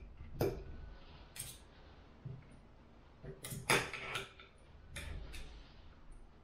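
Knife and fork clinking and scraping on a dinner plate while cutting food, a handful of short sharp sounds, the loudest a little past halfway.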